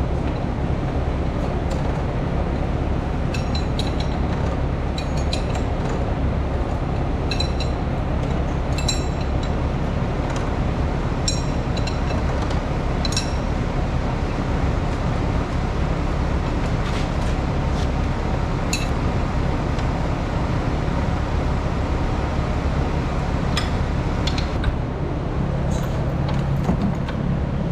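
Scattered metallic clinks and rattles of a wrench against the steel gathering chains and row-unit parts of a John Deere corn head as the chain tensioner is worked loose, over a steady low hum.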